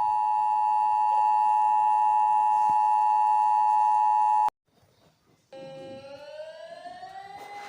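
Emergency Alert System attention signal: a loud steady two-tone alarm that cuts off suddenly about four and a half seconds in. About a second later a quieter siren wail starts and slowly rises in pitch, then holds.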